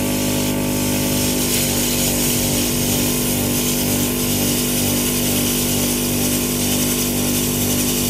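Plasma cutter with a built-in air compressor cutting through steel plate: a steady hiss of the arc and air over a low, even buzzing hum.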